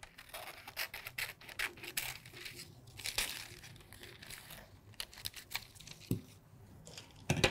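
Scissors snipping through tracing paper, with the paper rustling between short cuts as a curved line is cut out. A louder thump near the end.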